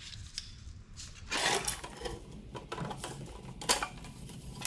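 Clicks and clatter of small hard dog-door parts being handled, with a denser rattle about a second and a half in and a few sharp clicks near the end.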